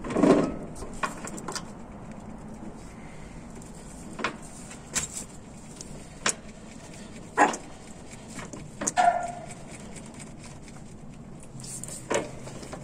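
Scattered metal clicks and knocks from a press being worked to crimp a small steel collar onto a 1/8-inch steel cable. A louder knock comes at the very start, and one about nine seconds in rings briefly.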